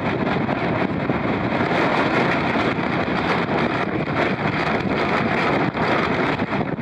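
Strong wind buffeting the microphone on an offshore sailing yacht in rough sea: a steady, dense rush with frequent brief crackles.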